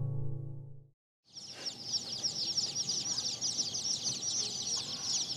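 A crowd of Barred Old English Game Bantam chicks peeping all together: many high, falling peeps overlapping without a break. Before them, the last acoustic guitar chord fades out, with a short gap just over a second in.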